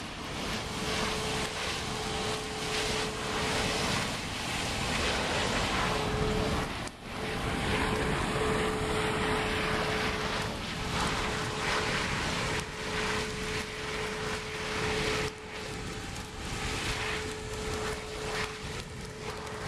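A John Deere tractor's diesel engine running steadily, mixed with the rushing noise of a boom-mounted propane ditch burner's flame and a steady hum. The sound dips briefly about seven seconds in.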